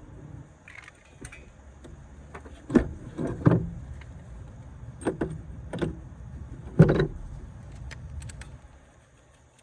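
A series of sharp knocks and clunks, about five of them, over a low rumble that fades out near the end.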